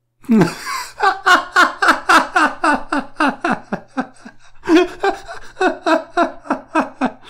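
A man laughing hard in two long bouts of rhythmic ha-ha pulses, about four a second, with a short catch of breath about four seconds in.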